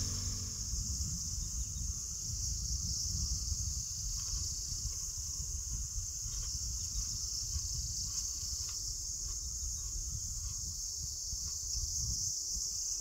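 Insects singing in a steady, high-pitched forest chorus, over a low, uneven rumble.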